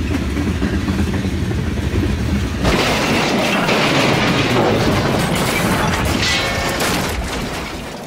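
Dubbed train-wreck sound effects: a low rumble of a running train, then, about three seconds in, a sudden loud crashing din with a brief screech near six seconds, fading out toward the end.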